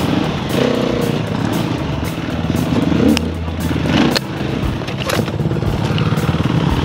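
Off-road dirt bike engine revving up and down through a rough trail climb, with heavy knocks about four and five seconds in as the bike goes down onto its side.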